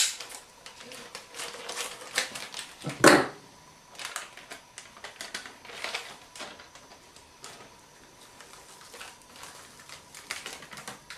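Plastic packaging of an MRE flameless ration heater being opened and handled: irregular crinkling and crackling, with one louder burst about three seconds in.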